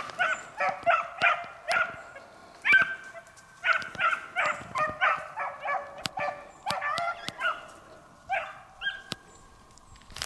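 Beagles baying while running a rabbit, in quick repeated calls several times a second. The calls pause briefly and trail off near the end.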